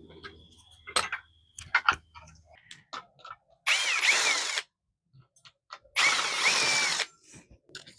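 Power drill-driver with a size 5 hex bit running in two bursts of about a second each, with a whine that rises and falls, backing out the two screws at the scooter's rear wheel. Light clicks of handling come between the bursts.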